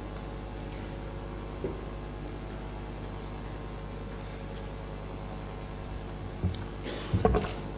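A steady electrical hum with no speech, broken near the end by two brief knocks, the second the loudest.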